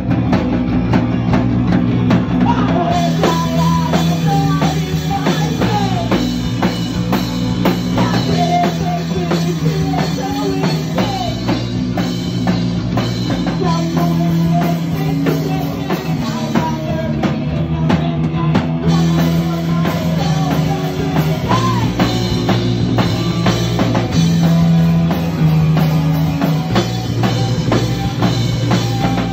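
Live punk rock band playing: distorted electric guitar, electric bass and a drum kit driving a steady beat, with a woman singing lead into a microphone.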